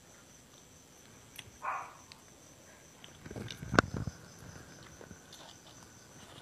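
Close-miked eating: a brief soft rustle of leafy greens, then a sharp crunch about four seconds in as crunchy blanched vegetable stems are bitten, followed by soft chewing clicks.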